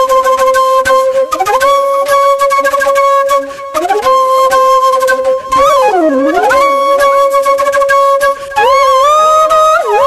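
Background music: a flute playing a slow melody of long held notes that slide and bend in pitch, with a wavering dip about six seconds in and rising slides near the end.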